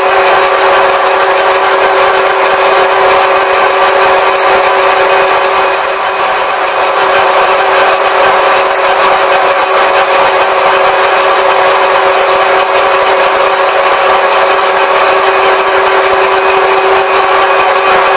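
IT-1M metal-turning lathe running steadily under power, its gear train giving a loud, even whine made of several steady tones.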